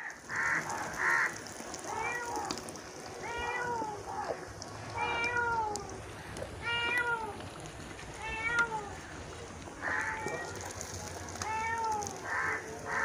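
A cat meowing over and over, with a drawn-out meow about every second and a half. Beneath it, hot oil sizzles in the pan.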